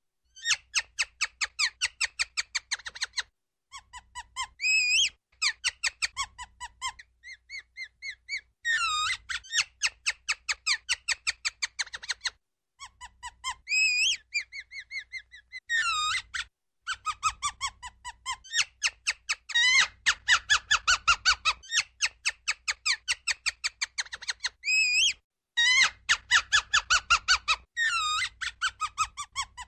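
Ground squirrel calling: fast runs of sharp, high chirps, about nine or ten a second, in bursts of one to three seconds with short gaps, with a few quick swooping squeals between them.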